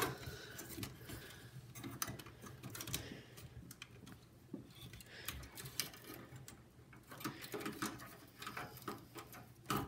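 Scattered light clicks and rattles of cable connectors being worked into a hard drive inside a PC case, with a sharper click at the start. A low steady hum runs underneath.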